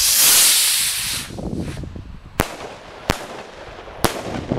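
Weco firework rocket launching with a loud rushing hiss that fades within about a second, then three sharp bangs in quick succession as its bang charges go off overhead.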